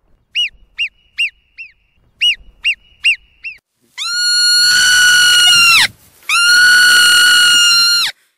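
Marmot whistles: about eight short, shrill alarm chirps that rise and fall, in two quick series, then two long whistled calls of about two seconds each, lower in pitch and held steady before dropping off at the end.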